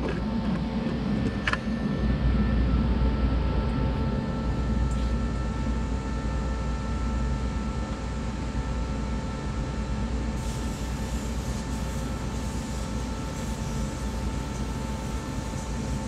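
Air hissing out of a tubeless motorcycle tire through its open valve stem with the valve core removed, with a thin steady whistle over the hiss. The hiss eases slightly over the first several seconds, and there is a light click about a second and a half in.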